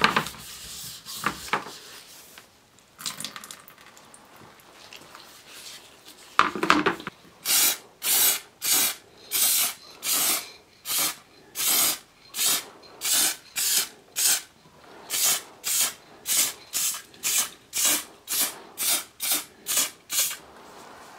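Aerosol spray-paint can being sprayed onto a steel helmet in many short hissing bursts, about two a second. Before the spraying there is rubbing at the start and a single clatter about six seconds in.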